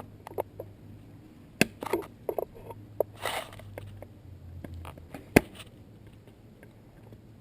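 Hand work on parts in a car's engine bay as a clip is worked loose: scattered small clicks and light knocks, a short scraping rustle about three seconds in, and one sharp knock about five seconds in.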